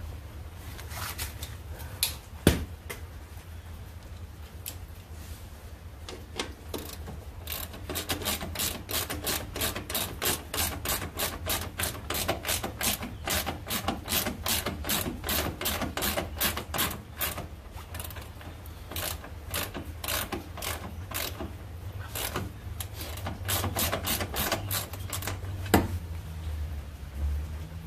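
Hand ratchet wrench clicking in quick runs as the door-hinge bolts are turned, with a sharp metal knock about two seconds in and another near the end.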